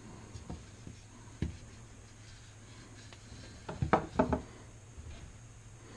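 Light knocks and taps of a whirligig's propeller blades being handled and set against a wooden workbench, with a few soft taps early on and a louder cluster of knocks about four seconds in.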